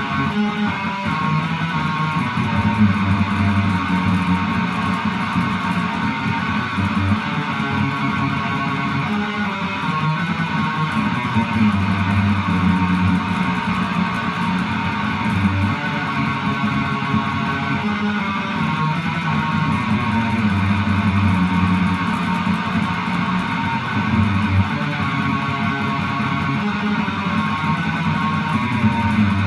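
Background music led by guitar, strummed chords over a steady bass line.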